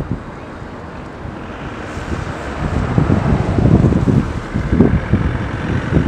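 Wind buffeting the microphone: a low, gusty rumble that grows louder about two to three seconds in.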